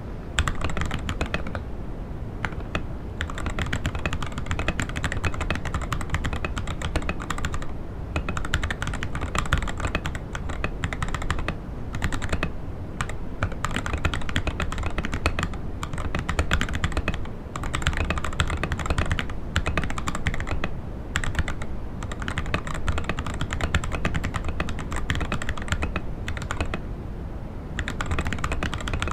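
Typing on the Akko ACR67, a gasket-mounted mechanical keyboard with an acrylic case and FR4 plate, in its stock, unmodded state: a fast, steady run of keystroke clicks broken by a few short pauses.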